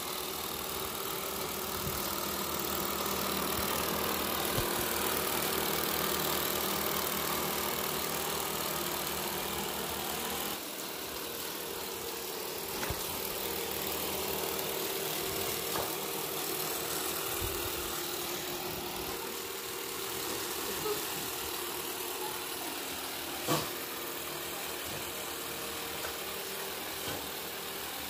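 Robot vacuum running on a tile floor: the steady whirring hum of its suction motor and spinning brushes, with a few light ticks and one sharp tap about three-quarters of the way through.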